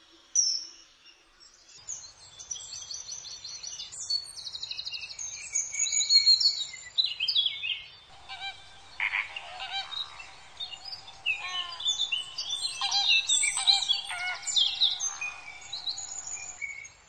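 Wild birds calling together: many high chirps, whistles and rapid trills. About eight seconds in, lower, repeated calls join them.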